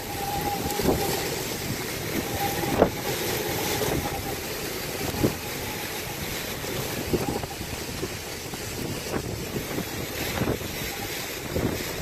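Hurricane-force wind and driving rain buffeting the microphone in a steady rushing roar, with a thin high whistle coming and going in the gusts and scattered sharp knocks.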